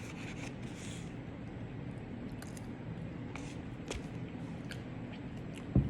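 Faint chewing and small mouth clicks from eating, with one short, low thump near the end.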